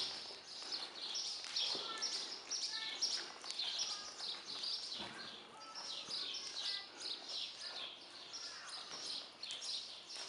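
Small birds chirping rapidly and continuously, a dense high-pitched twittering.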